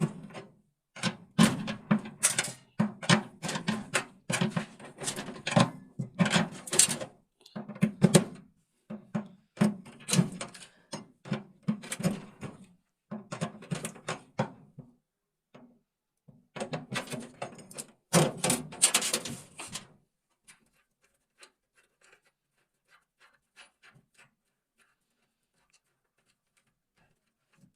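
Repeated irregular knocking, clicking and scraping of hands and tools working on a washing machine's pulsator plate, dense for about twenty seconds, then only a few faint ticks.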